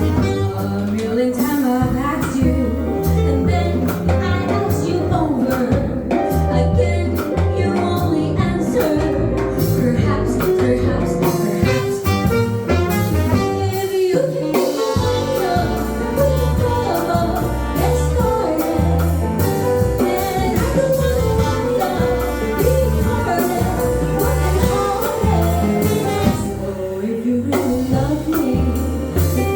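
A song with a singer's voice over instruments and a steady bass beat.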